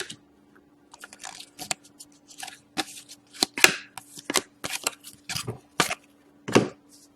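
Hockey trading cards and their packaging being handled: a quick string of short rustles and crinkles, over a faint steady hum.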